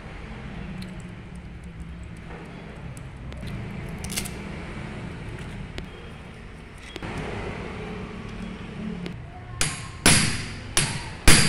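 Metal tool and parts being handled on a diesel injection pump's head over a steady low hum, then four or five sharp metallic knocks in the last two seconds as a wrench is set against the pump's delivery-valve holders.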